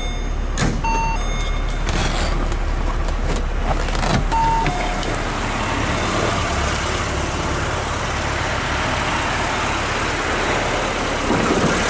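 1982 BMW 320i's four-cylinder engine idling steadily, with a few clicks and knocks and two short beeps in the first five seconds.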